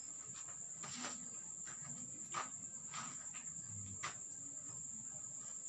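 Crickets trilling: one steady, unbroken high-pitched tone, with a few scattered light knocks.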